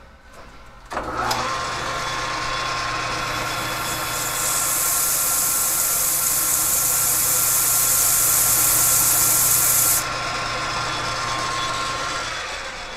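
Metal lathe motor starting about a second in and running with a steady whine. A strip of sandpaper is held against the spinning TIG-welded clutch housing, giving a loud hiss for about six seconds in the middle. The lathe is then switched off and spins down near the end.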